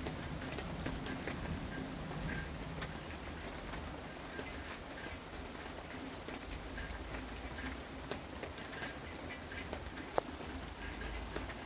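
Steady rain falling, with scattered drops tapping close by and one sharper tick about ten seconds in. The low tail of a thunder rumble fades out near the start.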